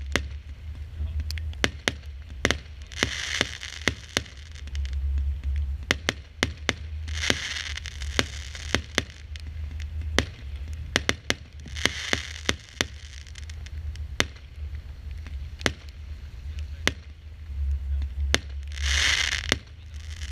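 Consumer firework battery firing: a rapid, irregular series of sharp bangs as the shots go up and burst, with a spell of crackling stars every four or five seconds.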